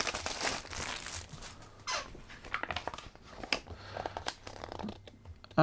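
Packaging from an LED light kit being handled, crinkling and rustling with scattered light clicks.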